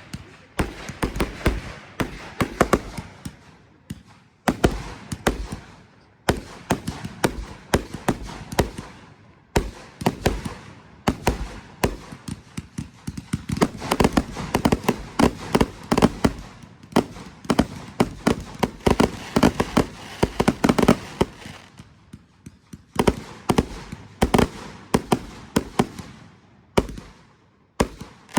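Fireworks going off in rapid volleys: dense strings of sharp bangs and crackles, coming in waves separated by brief lulls.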